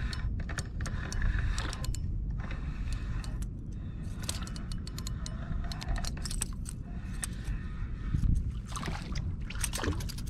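Penn spinning rod and reel being handled and cranked: scattered irregular metallic clicks and ticks over a low steady rumble.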